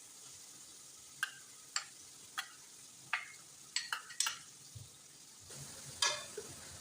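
Stew ingredients frying in oil in a pot while being stirred: a steady sizzle with about eight sharp, irregular knocks of the stirring utensil against the pot.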